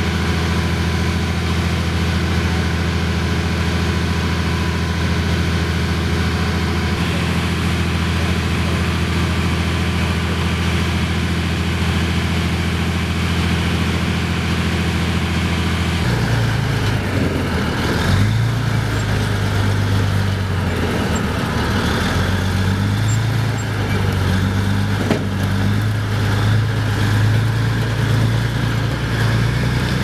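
Diesel engine of a tracked armoured vehicle-launched bridge, running steadily at a constant speed. About halfway through the sound changes suddenly, and the engine then runs with its speed rising and falling in steps.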